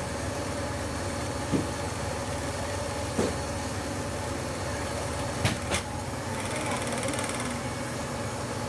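A long stirring paddle knocking against a big metal stockpot as it is stirred: four short knocks, the last two close together, over a steady machine hum.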